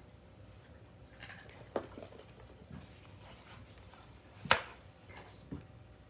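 A few light knocks and rustles of objects being handled or moved, with one sharp, louder knock a little past the middle.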